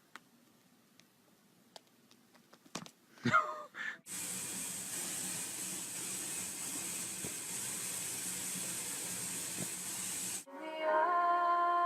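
A cat's short gliding yowl, then a steady hiss that starts and stops abruptly after about six seconds; music begins near the end.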